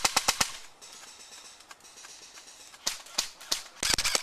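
Airsoft guns firing, sharp snapping shots: a quick string of about four at the start, a few scattered shots about three seconds in, and a rapid burst near the end.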